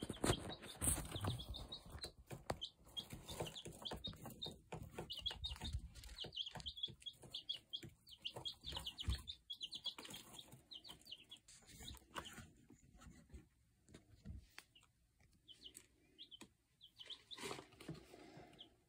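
Baby chicks peeping in a brooder: a quick run of short, high cheeps that thins out about two-thirds of the way through and picks up again near the end.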